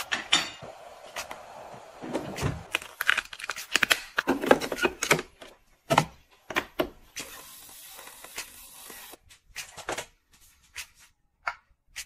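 Close-up handling of skincare items: soft fabric rustling and a run of small clicks and taps as plastic and glass cosmetic bottles and jars are picked up, opened and set down, with a steady hiss lasting about two seconds just past the middle.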